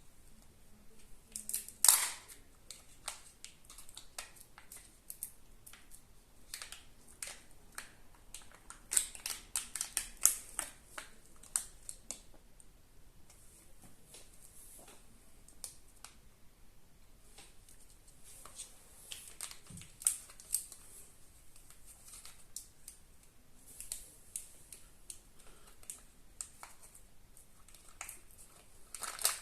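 Kinder Surprise eggs being unwrapped and opened by hand: the foil wrappers crinkle, and the chocolate shell and plastic toy capsule crack and click, in scattered bursts of small clicks and rustles with quieter gaps between.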